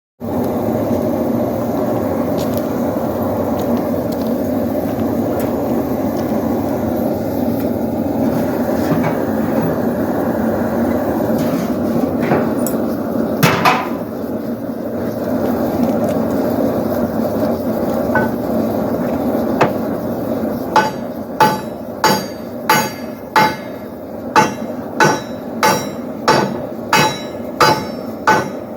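A steady rushing noise for about twenty seconds, with a few scattered knocks. Then a blacksmith's hammer strikes metal on an anvil at an even pace, about one and a half blows a second, each blow ringing briefly.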